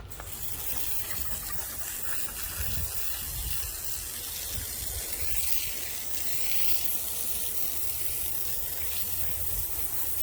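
Water spraying steadily from a hose nozzle, a strong even hiss that cuts in abruptly.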